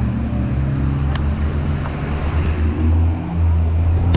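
A motor vehicle engine running steadily: a continuous low hum whose pitch shifts slightly.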